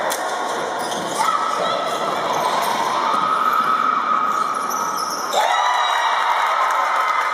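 Basketball game sounds in a reverberant gym: the ball bouncing on the court under a steady din of spectators' voices.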